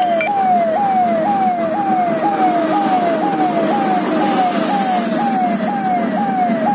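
Electronic police siren sounding a fast repeating cycle, each cycle a quick rise in pitch and a slower fall, about every three-quarters of a second, over the steady road and engine noise of a vehicle travelling at highway speed.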